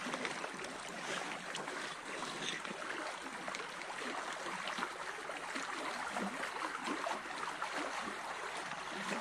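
Small stream's water running, a steady, even rush.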